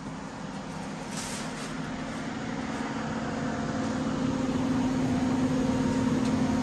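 Steady machine hum that grows gradually louder, with a brief rustle or clatter about a second in.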